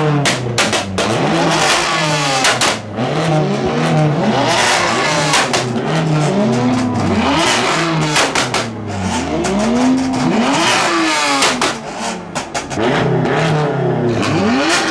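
BMW M3 being revved hard in repeated blips, the engine note rising and falling roughly once a second, with frequent sharp pops and bangs throughout.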